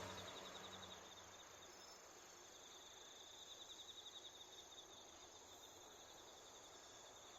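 Faint insect trill: a rapidly pulsing high note, a little louder in the middle, over quiet rural ambience. A passing car's engine fades out in the first second.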